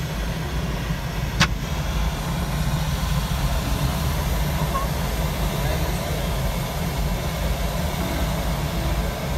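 Steady low rumble of a glider in flight, heard inside the closed cockpit, with one sharp click about a second and a half in.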